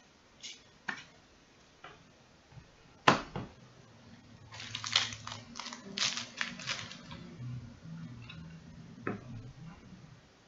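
Trading cards and hard plastic card holders being handled: a few light clicks, a sharp plastic snap about three seconds in, then a few seconds of crackly plastic rustling and another click near the end.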